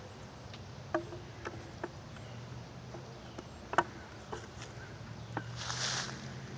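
Scattered, irregular light clicks and knocks, with a short rustling noise near the end, over a faint steady low hum.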